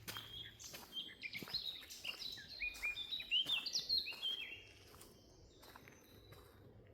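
A songbird singing a fast run of short, sliding chirps that swells and stops about two-thirds of the way through. Footsteps on the forest floor sound faintly throughout.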